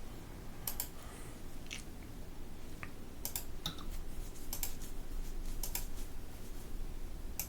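Typing on a computer keyboard: scattered, uneven keystroke clicks.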